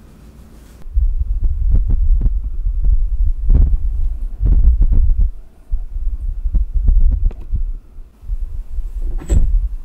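Handling noise close to the microphone: heavy low rumbling thumps that start about a second in, with several short knocks and a sharper knock near the end.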